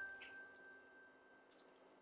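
Near silence: a single held note of background music fading away, with a faint wet squelch of thick batter sliding from a glass bowl into a loaf pan just after the start.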